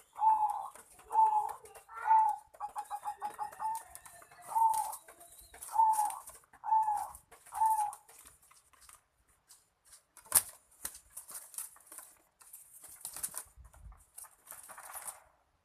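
Puter doves (domestic Barbary doves) cooing: a run of short low coos about a second apart with a quick rolling trill among them. After about eight seconds the cooing gives way to scattered hissy rustles, a sharp click about ten seconds in, and a fainter call near the end.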